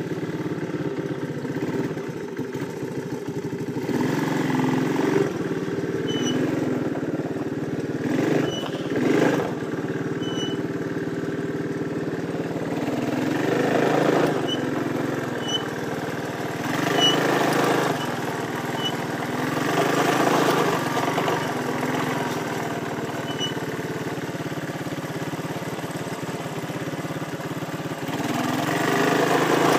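Honda ATC185S three-wheeler's single-cylinder four-stroke engine running near idle, with the throttle opened in small, uneven revs every few seconds, about six times, as a toddler learns to work it.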